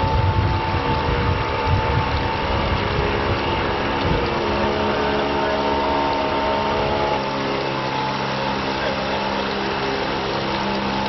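A steady motor hum made of several held tones over a low rumble. About seven seconds in, the tones shift to a new set and the rumble eases.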